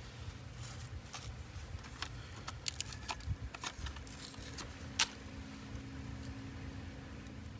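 Small plastic clicks and paper rustling as a tire-pressure-monitoring sensor is handled and opened by hand for a battery change, with one sharp click about five seconds in, over a steady low hum.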